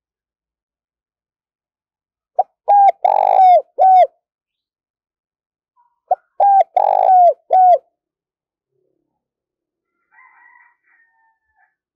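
Spotted dove singing two cooing phrases a few seconds apart, each a short opening note followed by three coos, the middle one longest, every coo dropping in pitch at its end.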